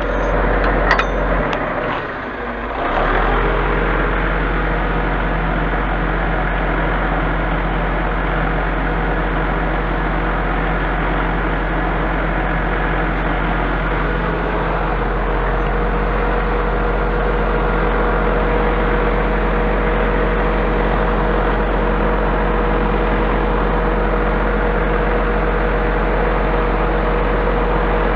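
Truck engine and loader-crane hydraulics running steadily: a continuous mechanical drone with a steady whine, which grows clearer about halfway through.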